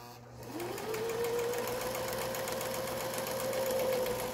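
Toyota domestic electric sewing machine stitching fabric: the motor speeds up with a rising whine about half a second in, then runs at a steady speed.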